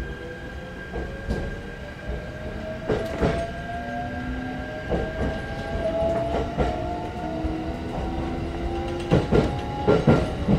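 Shinano Railway SR1 series electric train accelerating away from a station, heard from inside the car: the traction motor whine rises steadily in pitch as it speeds up, with pairs of wheel clicks over rail joints and points.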